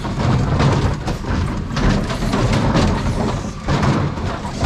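Rear bin lift of a 2018 Dennis Eagle Elite 6 refuse lorry raising a brown wheelie bin of garden waste and tipping it into the hopper. Repeated knocks and rattles sound over the steady low running of the lorry's engine and hydraulics.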